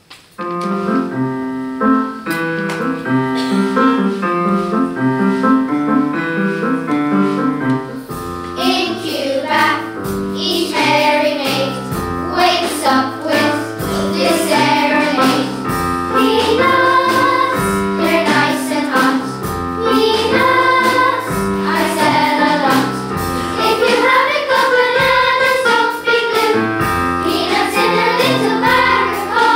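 Children's choir singing with instrumental accompaniment. The accompaniment opens the song on its own with a short intro, and about eight seconds in a bass line comes in and the children start singing.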